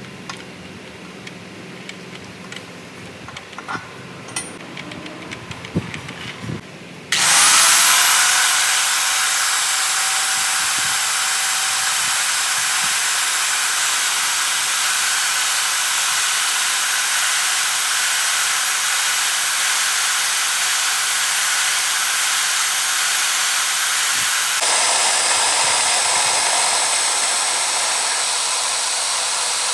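A few light clicks and knocks, then about seven seconds in an electric power tool switches on. Its motor whine rises quickly to speed and then runs steadily with a loud hiss, and the sound changes about 25 seconds in.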